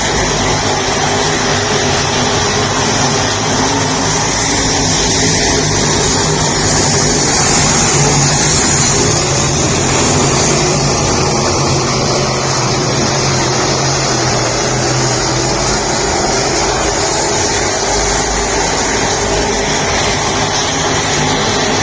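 Engines running steadily over a broad hiss, swelling slightly about eight seconds in.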